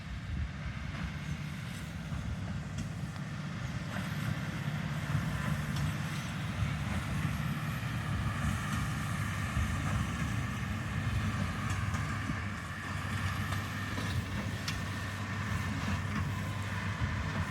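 Engine of heavy harvest machinery running steadily: a low hum with a whine above it.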